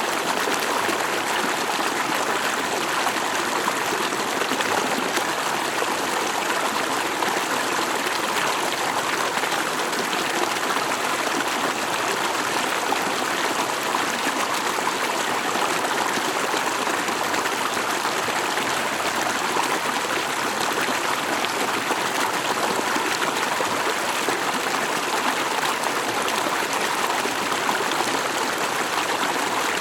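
Stream water flowing steadily, an even rush of water with no breaks or changes.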